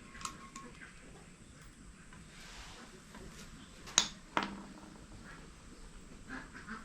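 A few light clicks, then two sharp knocks close together about four seconds in, against a quiet room background.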